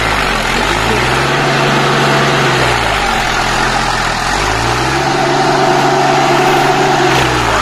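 Massey Ferguson 245 DI tractor's diesel engine working hard in deep mud with a rotary tiller. Its note drops twice and climbs back as the load comes on and eases.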